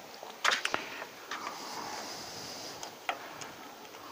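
Sharp clicks and light scrapes of a tool picking at the set, rubbery potting compound inside an electric vibrator motor's terminal box, with a quick cluster of clicks about half a second in and single clicks about a second and three seconds in.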